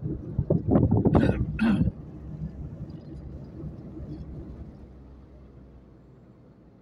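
A few loud, sharp vocal bursts from a person in the first two seconds, then the low, steady road rumble of the car driving, fading gradually toward the end.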